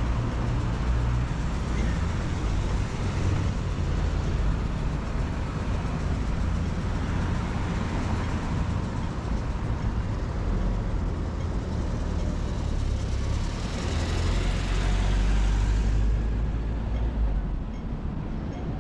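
Road traffic: passing vehicles give a steady engine and tyre rumble. One grows louder a few seconds before the end, then drops away suddenly.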